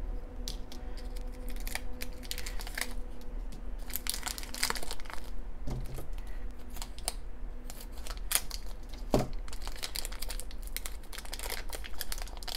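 A small purple foil wrapper crinkling and tearing as it is handled and pulled open by hand, a run of light crackles with denser bursts about four seconds in and near the end.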